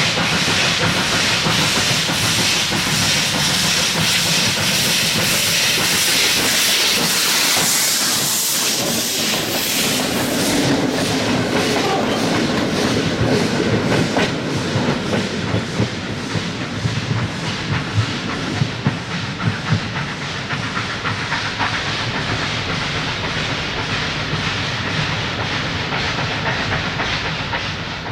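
Steam locomotive passing: a loud hiss of steam for roughly the first ten seconds, then a rapid, regular clatter of the train running on the rails.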